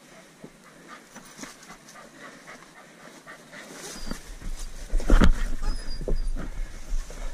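Footsteps scrambling over loose limestone boulders and scree, with stones clicking and scraping underfoot and steady panting. From about four seconds in, a low rumble buffets the microphone and the steps and scrapes grow louder.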